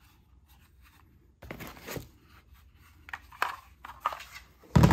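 Hard plastic 24V lithium-ion battery packs being handled and lifted out of foam packaging, with rustling and a few light knocks. Near the end comes a heavier thump as one is set down on a table.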